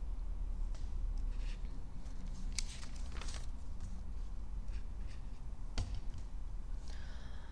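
Room tone through a meeting microphone: a steady low hum with a few faint clicks and small handling sounds.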